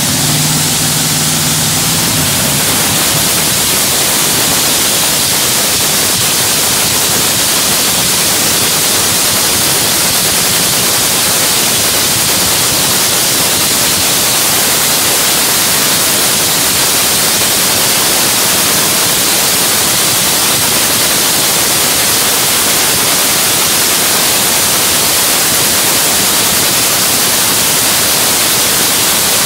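Top Fuel dragster's supercharged nitromethane-burning Hemi V8 running during its pit warm-up at a steady pace, with no revving, heard as a loud, even rush of noise.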